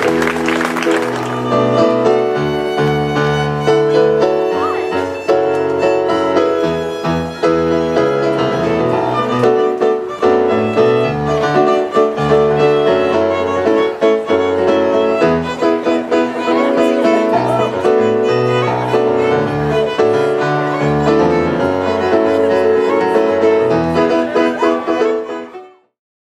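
Violin and piano duo playing a ceremony piece. Applause is heard in the first second or so, and the music fades out shortly before the end.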